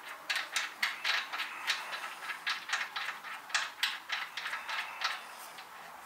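Hand ratchet wrench clicking in a quick series of short strokes, working on the crankshaft pulley bolt of a Mitsubishi 4B11 engine.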